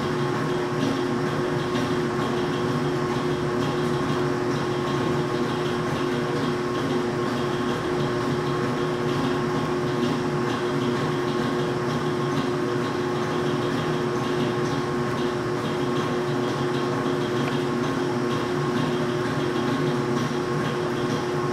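Diesel locomotive running steadily: a constant drone with a fixed whine and no change in level.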